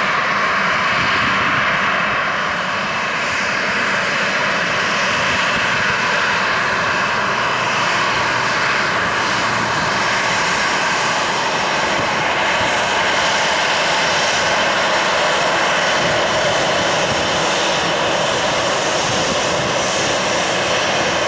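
Boeing 737's CFM56 jet engines running steadily at taxi power while the airliner turns on the runway, an even jet rush with a faint high whine.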